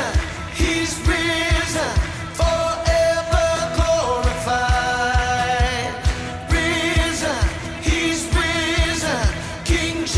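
Pop song playing: a sung melody with long held notes over a steady drum beat.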